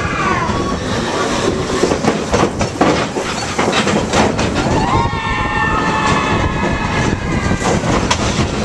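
Big Thunder Mountain Railroad mine-train roller coaster rolling along its steel track: a steady rumble with a quick run of clacks in the first half, then the wheels squealing in high, wavering tones from about halfway on.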